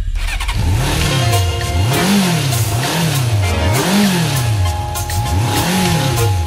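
Music intro with a beat and an engine revving up and down over and over, each rev rising and falling in pitch about once every two seconds.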